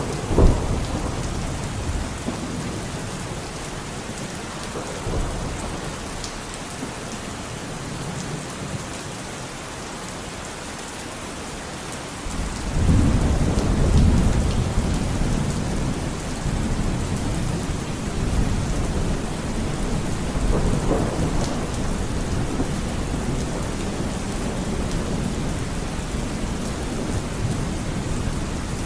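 Steady rain with thunder. A sharp thunderclap comes just after the start; about twelve seconds in, a long low roll of thunder builds suddenly and rumbles on under the rain.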